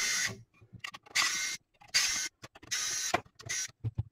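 Cordless electric screwdriver running in three short bursts, backing screws out of a surge suppressor's metal end plate, with a few faint handling clicks near the end.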